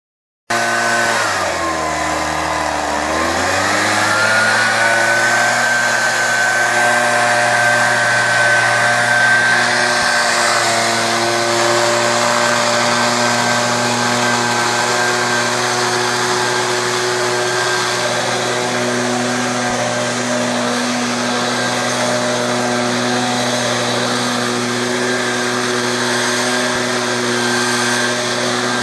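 Handheld leaf blower running steadily with a high whine. Its pitch sags about a second in and climbs back up by about four seconds, then holds steady.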